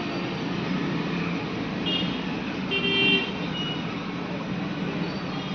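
Steady street traffic noise with short high horn toots, the loudest about three seconds in.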